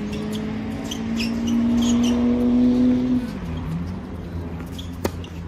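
A motor vehicle's engine nearby, steadily rising in pitch and growing louder for about three seconds, then dropping in pitch. A single sharp knock near the end.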